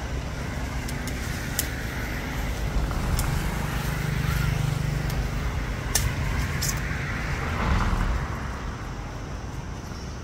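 Outdoor background with a road vehicle's engine hum swelling as it passes about midway, and a few sharp clicks.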